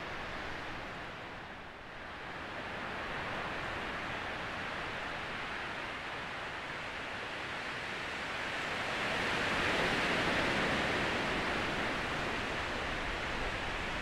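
Wind rushing through trees: a steady rushing noise that swells into a louder gust about ten seconds in, then eases a little.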